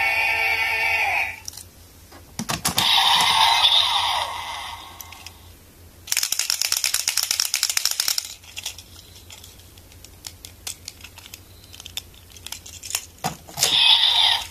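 Kamen Rider Build DX Hazard Trigger and Build Driver transformation toys: electronic sound effects play through their small speakers at the start, with a second burst a couple of seconds later. Around six seconds in, DX Full Bottles are shaken for about two seconds, a fast plastic rattle. Scattered plastic clicks follow as a bottle is slotted into the driver, and the driver's electronic sound starts again near the end.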